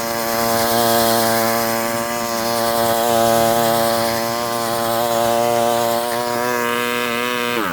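Westermann moss brush's small petrol engine running at a steady high speed, with the wire brush scrubbing moss off the tarmac; near the end the engine is throttled back and its pitch drops sharply.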